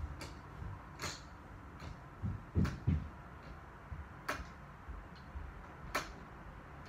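Free-standing punching bag rocking on its spring stem, giving irregular sharp ticks about once a second, with two soft knocks close together near the middle.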